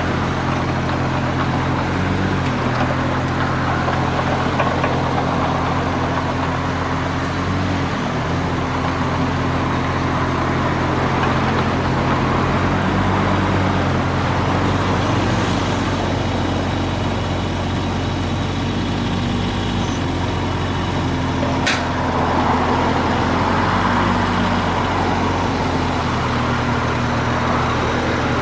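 Mitsubishi MM20CR mini excavator's diesel engine running steadily, its pitch dipping briefly twice in the first third, with a single sharp click about three-quarters of the way through.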